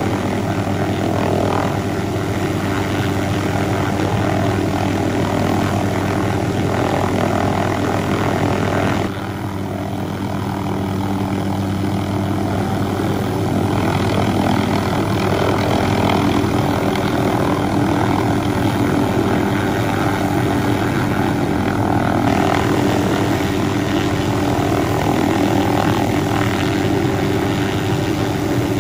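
MD 500-series helicopter hovering close by, its rotor and turbine running steadily. About nine seconds in the sound drops a little and thins, then builds back up.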